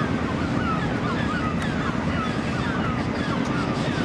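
Wind rumbling on the microphone over the low running noise of an approaching double-deck heritage tram. A string of short, high, falling calls repeats throughout.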